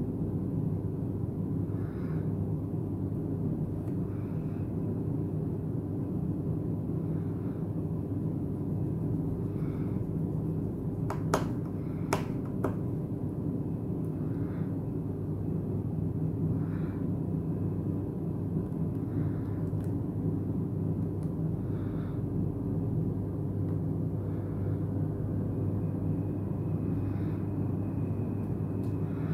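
Steady low hum with a few small sharp clicks close together a little before the middle, typical of small metal parts and tools handled while taking a smartphone apart.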